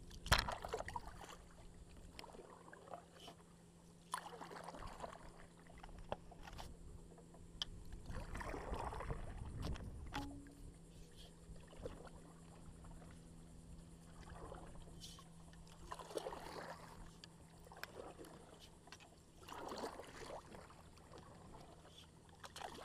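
Kayak paddle strokes: blades dipping into and pulling through calm water, with swells of splashing and dripping every few seconds. A sharp knock right at the start.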